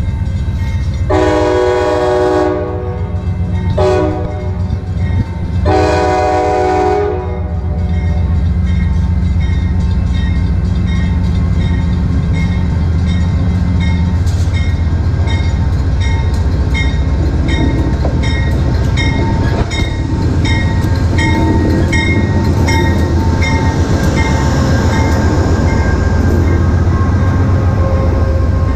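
Diesel locomotive horn blowing three blasts (long, short, long) as a Shore Line East train approaches. The locomotive's bell then rings about once or twice a second over the engine's drone, and the coaches rumble past louder near the end.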